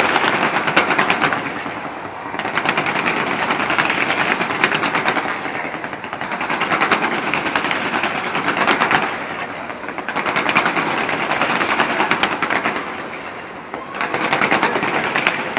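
Fireworks display going off in rapid, dense volleys of bangs and crackles, rising and falling in about five waves of a few seconds each.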